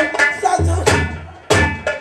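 Folk-style music with several sharp drum strikes over sustained instrument tones. A deep bass thud comes about half a second in.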